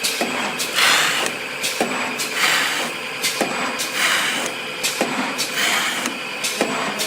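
CFQG-SK-150 CNC paper core cutter running through its cutting cycles: repeated knocks and clatter, with a hissing rush about every second and a half.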